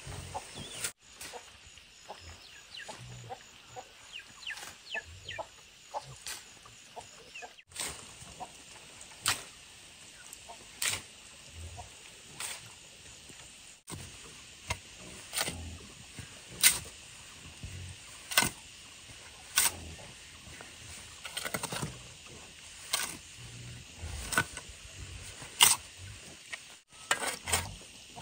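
Steel shovel scraping and chopping into a pile of cement, sand and gravel as it is mixed by hand, one stroke about every second and a half.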